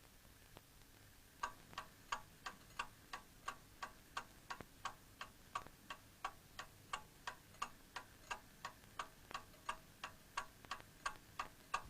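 Alarm clock ticking faintly and evenly, about three ticks a second, starting about a second and a half in.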